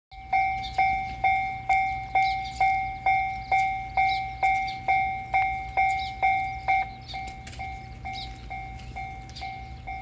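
Japanese railway level-crossing warning bell ringing its rapid 'kan-kan' at about two strikes a second, loud at first. From about seven seconds in it carries on much fainter, as the crossing barrier rises.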